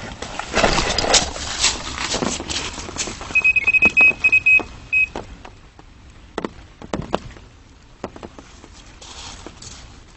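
Electronic carp bite alarm sounding a fast run of about seven short, high beeps at one pitch over a second and a half, the signal of a fish taking the bait and pulling line. Rustling and scattered sharp clicks come before and after it.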